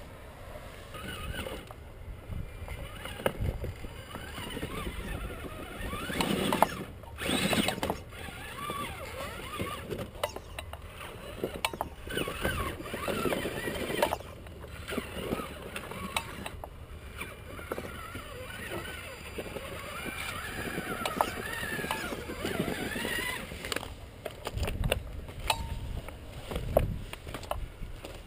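Electric motor and drivetrain of a Traxxas Summit 4x4 RC truck whining as it crawls over boulders, the pitch rising and falling with the throttle. Scattered knocks of tyres and chassis on rock, with a louder noisy stretch about a third of the way in.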